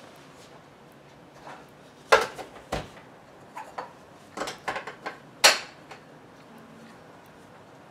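Irregular clatter and knocks of a plastic blender jar and lid being handled on a countertop while food is loaded in. There are about a dozen sharp knocks, the loudest about two seconds in and again after five seconds.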